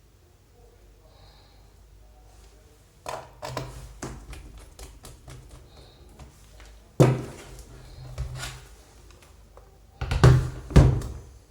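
Hard objects being handled on a hard surface: a run of small clicks and taps starting about three seconds in, a loud knock about seven seconds in, and two more loud knocks close together near the end.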